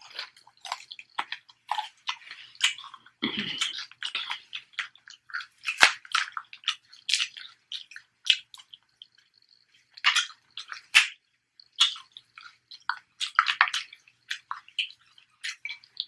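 Close-miked wet eating sounds: irregular chewing and lip smacks on sauce-coated seafood.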